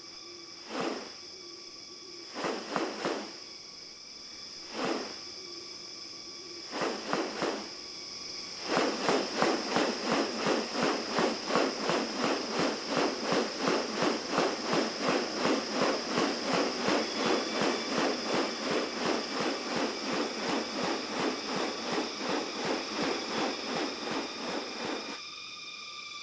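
Steady high-pitched insect drone, with a few separate bursts of another sound early on and then a loud pulsing rhythm of about three beats a second from about nine seconds in that stops shortly before the end.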